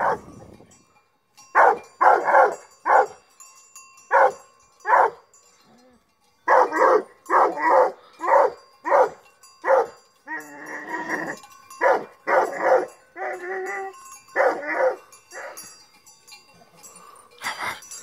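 Dog barking in a long run of short, loud barks, with a brief pause about six seconds in.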